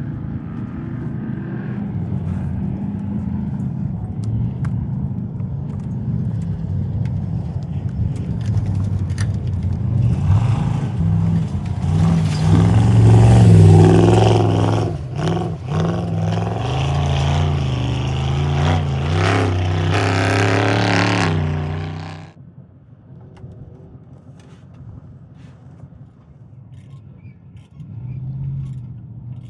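A trophy truck's engine running hard as the truck races by, building to its loudest about halfway through, its pitch shifting up and down. It cuts off suddenly about three-quarters of the way in, leaving a much quieter engine rumble that swells briefly near the end.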